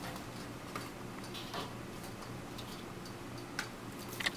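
A few faint, light clicks and taps of small dishes being handled and set down on a kitchen counter, over a steady low hum. There are about four taps, and the loudest comes near the end.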